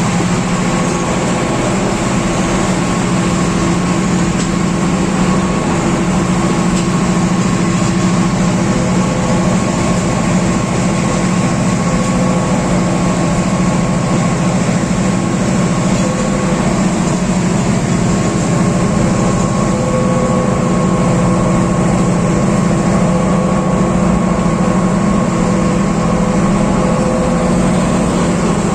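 Class M6 diesel-electric locomotive's EMD engine running loud and steady under heavy power.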